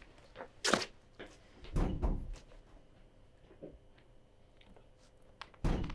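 A door bangs shut, with a sharp knock about a second in and a heavy thud about two seconds in. Another thump comes near the end.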